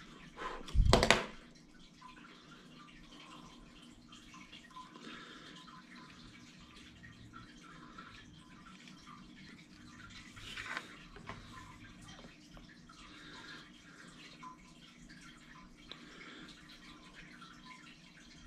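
Hands working small parts and tools on a bench: a sharp knock about a second in, then faint rustling and small clicks, with another small knock around ten seconds in.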